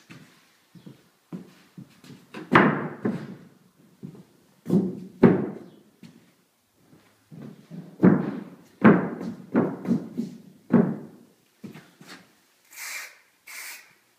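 A wooden board kicked forward and sliding across a wooden subfloor: a series of heavy thuds, each trailing off in a scrape, with footsteps between. Near the end, two short hisses of a marking paint spray can.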